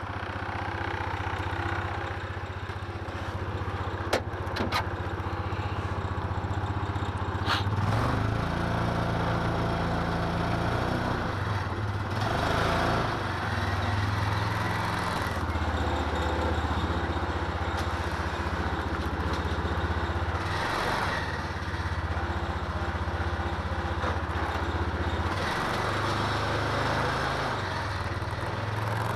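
Yamaha Rhino UTV's single-cylinder engine running steadily, picking up and working harder from about eight seconds in as the machine drives and pushes snow with its front plow. A few sharp knocks sound in the first eight seconds.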